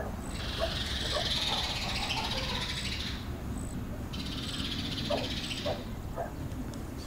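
Tea poured from a teapot into small glass tea glasses, a steady splashing hiss. The first pour lasts about three seconds; a second, shorter pour starts about four seconds in. Faint bird or animal calls sound in the background.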